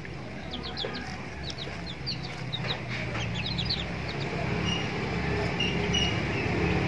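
Chickens clucking, with many short high chirps coming thick for the first three seconds or so and then thinning out. A low steady hum grows louder underneath in the second half.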